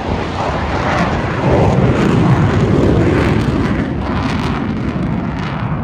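Jet engine noise from Blue Angels F/A-18 Hornets: a loud, rushing noise that swells about a second and a half in, then eases slightly toward the end.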